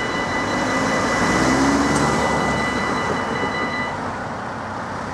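Level crossing warning bells ringing as the barriers lift, stopping about four seconds in once the barriers are fully up. Cars drive across the crossing, one engine pulling away with a rising note.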